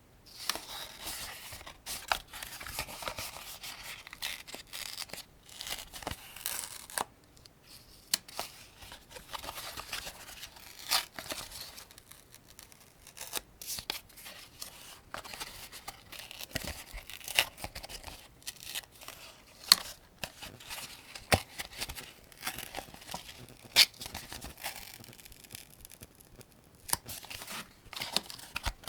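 Cartridges being loaded one by one into a 75-round AK-47 drum magazine: irregular sharp clicks, with scraping and rustling between them.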